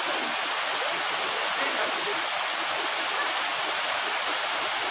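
Waterfall in heavy flow: a steady, even rush of falling water.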